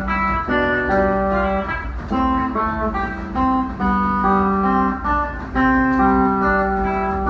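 Guitar playing a slow run of ringing chords and notes, the harmony changing about once a second.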